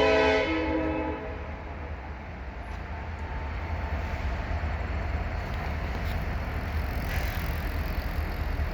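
Diesel-electric freight locomotive horn sounding a loud chord that cuts off about a second in, followed by the steady low rumble of the freight train rolling past.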